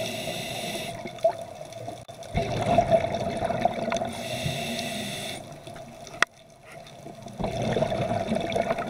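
Scuba regulator breathing heard underwater. A hissing inhale alternates with a rush of exhaled bubbles in a slow cycle of a few seconds, and one sharp click comes about six seconds in.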